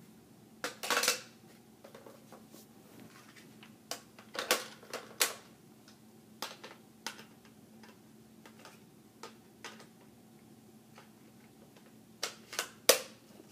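Hard plastic clicks and clatters at irregular intervals, with the loudest clusters about a second in, midway, and near the end: a Nerf N-Strike Elite Retaliator blaster's stock, grip, barrel extension and magazine being handled and snapped into place. A faint steady hum runs underneath.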